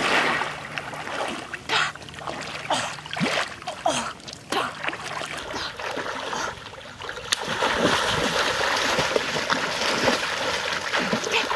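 Water splashing and sloshing as a person swims and kicks through a shallow muddy pond. The splashes come irregularly at first, then turn steadier and louder from a little past the middle.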